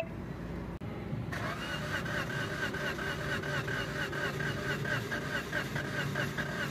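Suzuki Cultus three-cylinder engine being cranked by its starter motor without firing, a rhythmic beat of about four to five strokes a second that sets in about a second in. It turns over the way an engine with weak compression does, which the mechanic puts down to a head gasket leaking after overheating.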